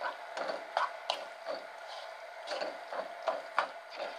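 Wooden spatula scraping and knocking against a nonstick pan while stir-frying squid and vegetables: irregular strokes, about two or three a second, over a steady hiss.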